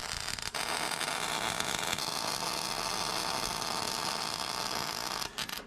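Electric arc welding on a steel forklift fork: the steady hiss of the welding arc, broken off briefly about half a second in and stopping shortly before the end.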